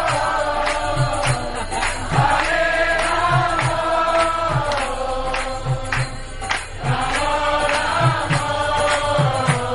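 Kirtan: a group chanting a devotional mantra in chorus over held sung notes, with regular low drum strokes and light percussion clicks, the drumming growing busier near the end.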